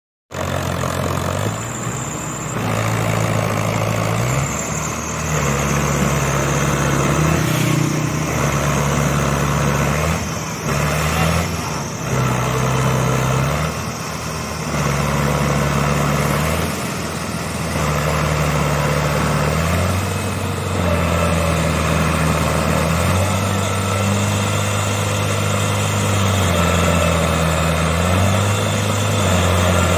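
Fiat 640 tractor's four-cylinder diesel engine labouring under heavy load as it pulls a heavily loaded sugarcane trailer, its pitch stepping up and down every few seconds as the revs rise and fall.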